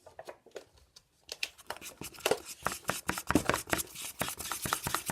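Slime being mixed and squished by hand: a quick, irregular run of sticky clicks and small pops that starts about a second in.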